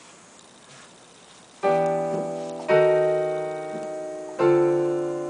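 Three chords played on a digital piano, each struck and left to ring and fade, the first about a second and a half in, the next two about one and one and a half seconds later. They are trial chords for the end of a melody.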